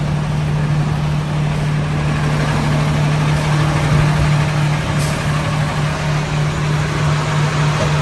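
Truck engine idling steadily, a constant low hum, heard through the open driver's window.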